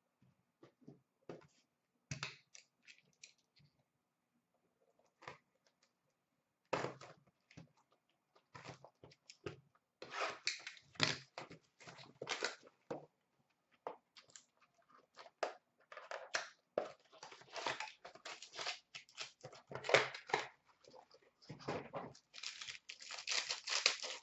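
Trading card packs being torn open and their foil wrappers crinkled, with a few light taps and clicks of handling before the tearing and crinkling start about ten seconds in and grow busier toward the end.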